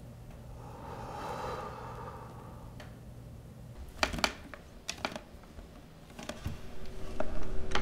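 A soft swell of hiss about a second in, then a scattering of sharp, irregular clicks and taps, the two loudest close together about four seconds in.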